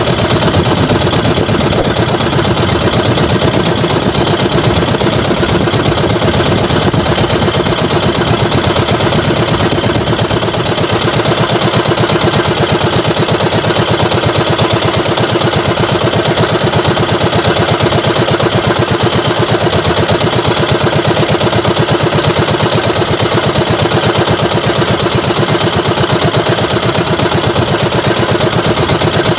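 Outrigger fishing boat's engine running steadily under way, a loud even drone with a rapid beat that does not change.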